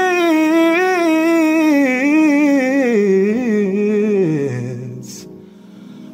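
A male singer's fast, intricate vocal run: a rapid flurry of notes that winds downward from a high note to a low one over about four and a half seconds, then fades out.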